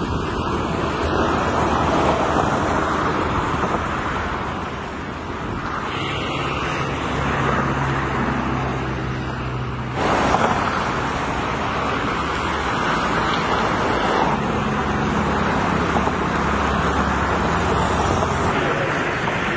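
Road traffic noise: a steady hum of passing vehicles, with the drone of an engine going by in the middle and again in the second half. The sound changes abruptly about halfway through.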